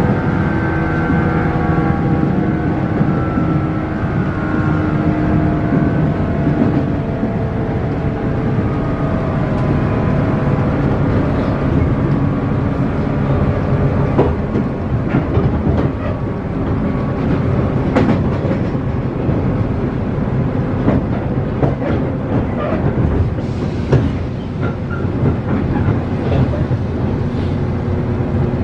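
Inside a JR 117 series electric multiple unit running at speed: a strong rumble of wheels and running gear, with the whine of its traction motors clear for the first six seconds or so and then fading. Sharp clicks of wheels over rail joints come through the middle, and the motor tone comes back near the end.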